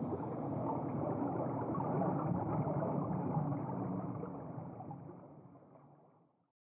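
Low rush of churning water, building for about three seconds and then fading away to silence near the end.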